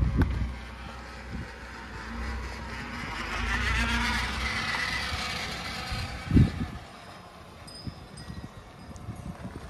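Tata Punch CNG's three-cylinder engine and tyres as the car drives slowly past close by on a dirt track, the noise rising as it passes about four seconds in and then fading. A single short low thump comes a little over six seconds in.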